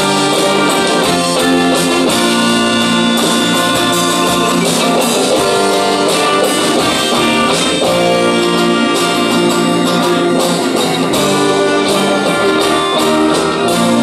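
A live band playing a song together with electric guitars, a drum kit, keyboard and horns, at a steady full volume with a regular drum beat.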